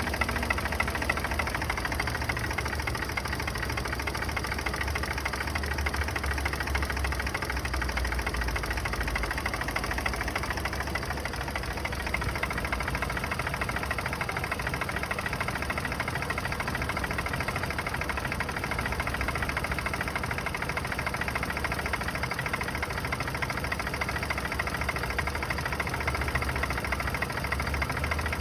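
Turbocharged Honda B-series four-cylinder engine idling cold, with a steady rapid knocking through the run, which the owner takes for piston slap.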